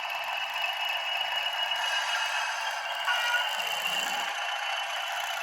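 Model railway sound units playing recorded diesel engine sound together: a DCC sound-fitted OO gauge Class 20 and a Traintech sound capsule. The engine sound is a steady, thin drone from small speakers, with no deep bass.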